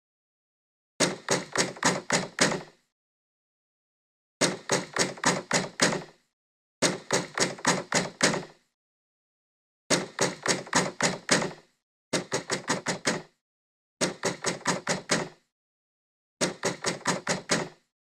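Knocking on a door in seven insistent bursts, each a quick run of about six or seven raps lasting a second and a half, with silent pauses between the bursts.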